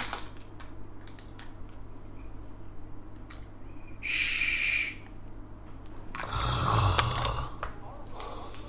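Snoring: a short hissing breath about halfway through, then a longer, louder snore with a low rumble.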